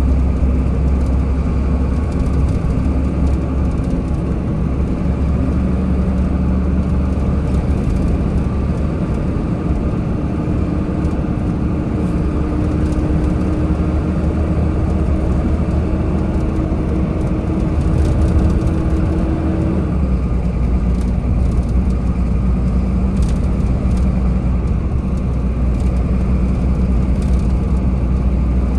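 Car driving in traffic: a steady low rumble of engine and tyre noise, with a faint steady hum that stops about two-thirds of the way through.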